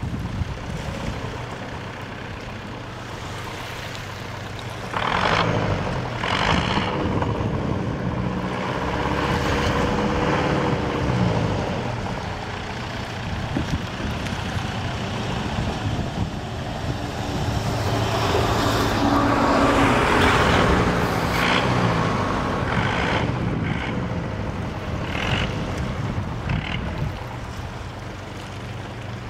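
Boom boat's engine running and revving up and down in surges as it works the logs, mixed with the noise of road traffic passing.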